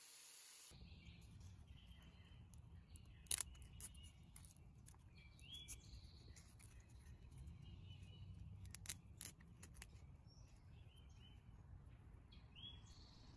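Faint outdoor ambience: a steady low rumble, birds chirping now and then, and a few sharp clicks of small hand tools being handled, the loudest about three seconds in.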